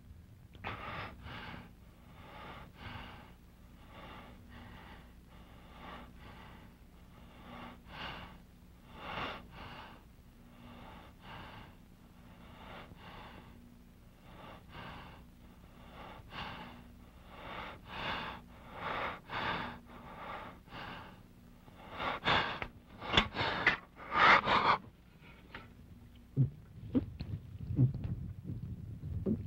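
A man breathing hard: a steady run of rapid, rasping breaths that get much louder for a few seconds about three quarters of the way through. A few low thuds follow near the end.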